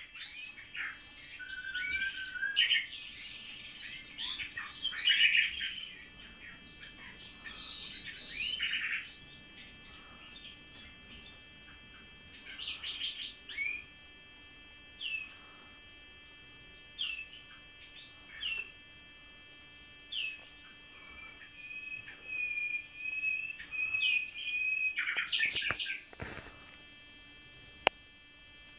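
Common nightingales and a blackcap singing: dense, varied phrases of whistles and trills for the first several seconds, then single whistled notes spaced a second or two apart, a held whistled note, and another loud phrase near the end. A single sharp click comes near the end.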